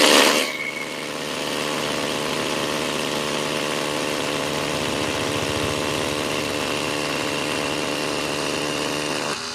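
iBell 20V cordless hammer drill with a 10 mm bit drilling into granite. The hammering is loud for about the first half second, then drops to a quieter, steady motor run with a constant hum that cuts off at the very end.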